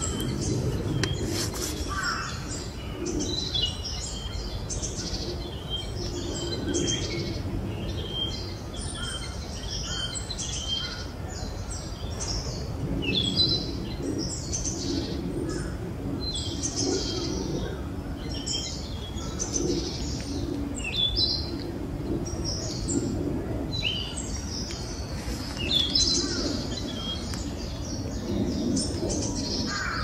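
Young male narcissus flycatcher singing: short whistled and chirped phrases coming every second or so, a rather subdued song.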